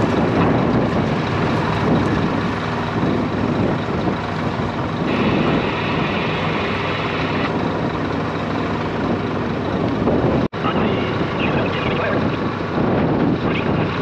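A vehicle engine running steadily under heavy wind rushing across the microphone. The sound cuts out for an instant about ten and a half seconds in, then carries on.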